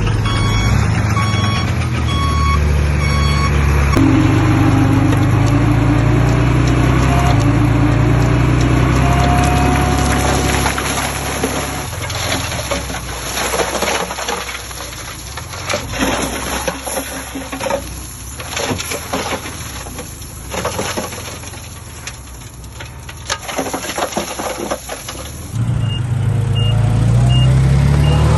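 Diesel engine of heavy construction machinery running, with a reversing beeper sounding at first. From about 11 seconds in the engine gives way to a noisy stretch of clatter and knocks, and near the end the engine returns with a higher-pitched reversing beeper repeating evenly.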